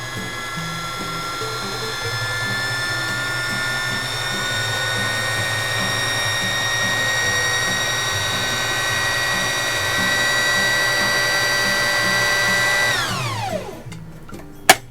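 Singer Heavy Duty 4452 sewing machine motor running at full speed to wind a bobbin. Its whine climbs a little, holds steady, then falls away as the motor stops near the end, followed by a sharp click. Background music plays underneath.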